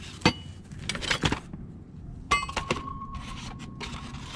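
Metal car-jack tools knocking as they are handled and set into place, then one metallic clang about two seconds in that rings on for about a second and a half.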